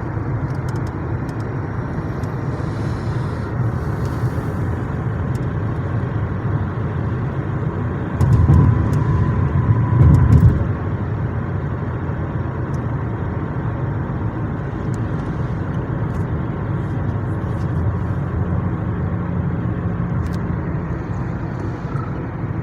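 Car running down the highway, heard from inside the cabin: steady road and engine rumble with faint scattered ticks of drizzle. A louder low rumble swells for about two seconds around the middle.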